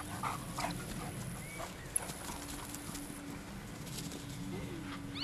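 A Chesapeake Bay Retriever running on grass, with a quick, faint rhythmic patter of its run during the first second. After that it goes quieter over a faint steady hum.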